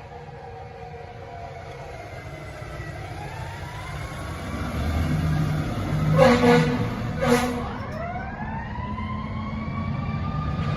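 Fire truck sirens wailing, several tones gliding up and down in pitch over a truck's engine rumble, growing louder toward the end. Two short, loud horn blasts about six and seven seconds in.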